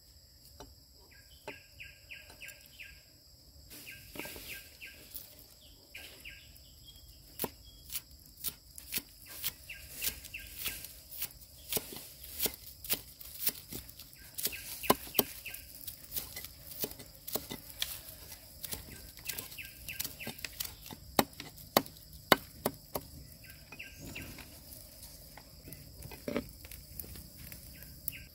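Cleaver chopping green onions on a thick wooden chopping board: a long run of sharp knocks, about two to three a second, getting stronger from a few seconds in. A bird calls in short repeated bursts every few seconds, over a steady high insect hiss.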